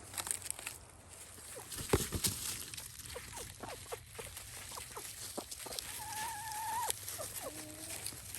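Chickens clucking in a run of short calls, with one longer drawn-out call near the end. There is a cluster of knocks about two seconds in.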